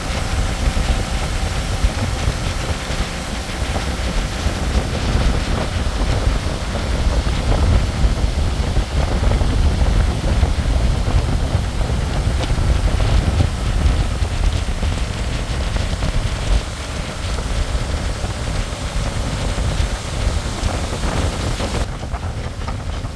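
Wind buffeting the microphone on a moving pontoon boat, a steady low rumble over the hum of its outboard motor and water rushing past the hull.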